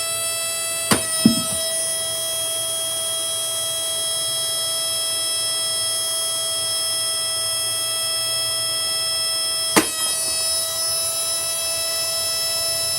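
Shark Rotator vacuum cleaner motor running flat out with a steady, high-pitched whine that is so freaking loud. Sharp knocks come about a second in and again near the end.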